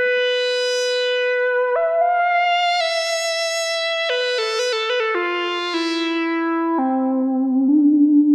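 Sequential Circuits Pro-One monophonic analog synthesizer playing a single-line melody with a bright, buzzy tone: a long held note that steps up about two seconds in and holds, then a quicker run of notes stepping downward, ending on lower held notes.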